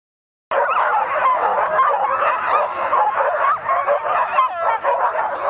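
A team of harnessed sled dogs yelping and howling together, a dense chorus of high, wavering cries starting about half a second in: the excited clamour of huskies hitched up and eager to run.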